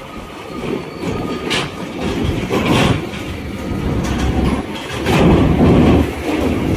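Loaded Hino trucks driving off a ferry's steel ramp: diesel engines running and the wheels rumbling and clanking over the steel ramp plates, with several clanks and the loudest passage about five seconds in.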